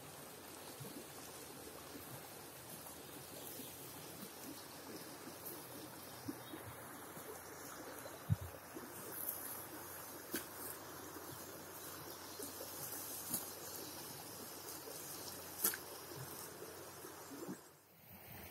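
River water running steadily, with a few short clicks and one low knock about eight seconds in.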